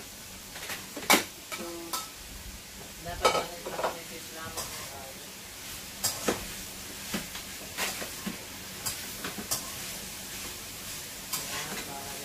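Food sizzling in a frying pan on a gas stove while it is stirred, with irregular sharp clacks of the utensil against the pan.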